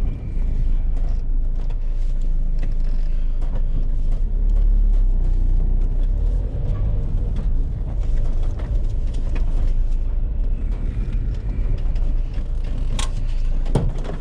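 Van driving, with a steady low engine and road rumble heard from inside the cab, and a couple of sharp knocks near the end.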